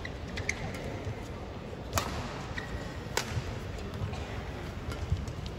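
Badminton rally heard from the arena stands: sharp racket hits on the shuttlecock, the two loudest about a second apart near the middle, over a steady arena hum.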